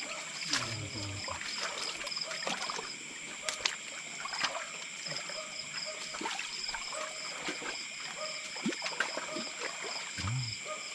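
Night chorus of insects and frogs: steady high-pitched trilling, with a pulsing call that repeats a few times a second. Scattered small clicks and splashes of water sound over it.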